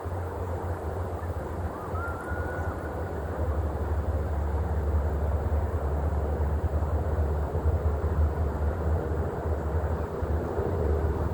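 Wind buffeting the microphone outdoors, a steady low rumble and hiss, with a brief rising whistle-like call about two seconds in.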